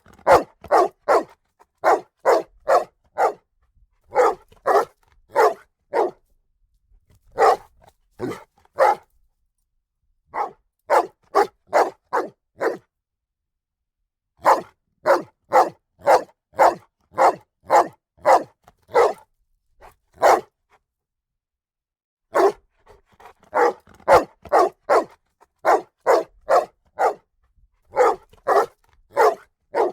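A dog barking loudly in runs of several sharp barks, about two a second, with short pauses of a second or two between the runs.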